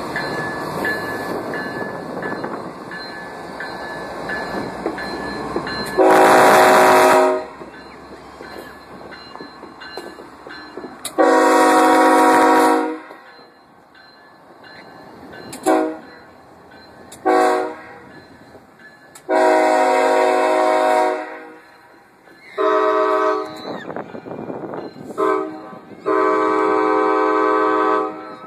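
A diesel locomotive rumbles past, then its multi-chime air horn sounds about eight blasts, long ones mixed with short ones, with the engine and rail noise in between.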